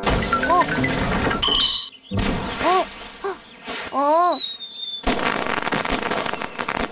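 Cartoon firework sound effects: hissing rushes broken by short squeaky rising-and-falling tones, then a high whistle gliding down, then a long crackling burst of fireworks from about five seconds in.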